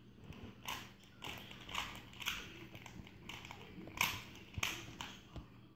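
Plastic Rubik's Cube layers being twisted by hand, giving irregular clicks and rattles at about two a second.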